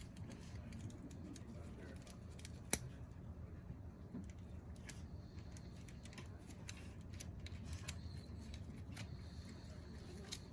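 Light scattered clicks and ticks of small parts and hand tools being handled while spider web and debris are cleaned out of a gas furnace's burner orifice, with one sharper click about three seconds in, over a low steady hum.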